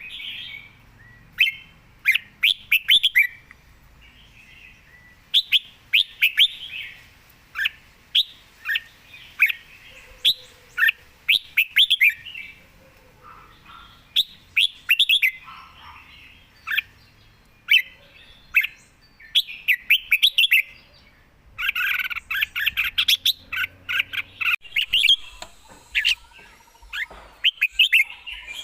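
Red-whiskered bulbul singing: quick phrases of short, bright notes, repeated every second or two with brief pauses between them.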